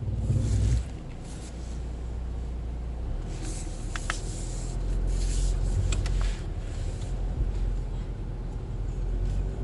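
Steady low hum inside a car's cabin, with faint rustling and a couple of soft clicks about four and six seconds in.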